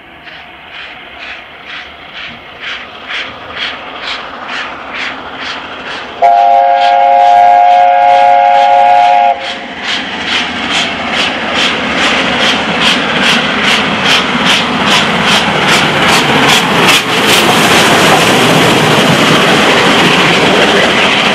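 LNER A4 Pacific 60009's three-cylinder engine working hard as it approaches and passes: a regular exhaust beat grows louder and quicker. About six seconds in, its chime whistle sounds for about three seconds. Then comes a loud rush of exhaust and coaches going by.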